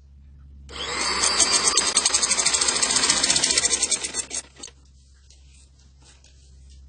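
Domestic sewing machine stitching through fabric in a fast, even clatter, starting about a second in and stopping after about four seconds.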